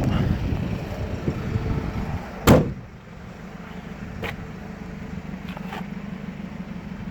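Wind and handling noise, then one loud bang of the van's insulated rear door about two and a half seconds in, followed by a few light clicks.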